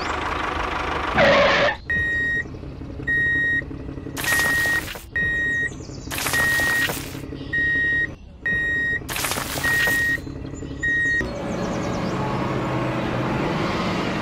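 A truck-style reversing alarm beeping, about nine steady high beeps roughly one a second, over a steady low engine hum. Three loud hissing rushes come between the beeps, and the beeping stops about 11 seconds in while the engine hum runs on.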